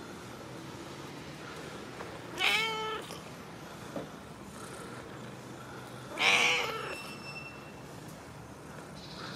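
Domestic cat meowing twice, about four seconds apart, the second meow a little longer and falling in pitch at its end.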